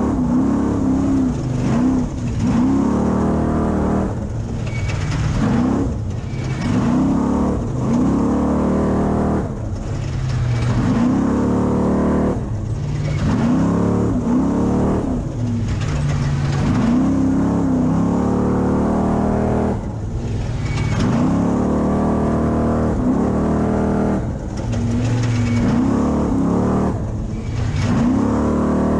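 Off-road race truck engine at racing speed, its pitch climbing and dropping over and over as the throttle goes on and off, with brief lifts every few seconds, over a constant rumble of the truck running over rough ground.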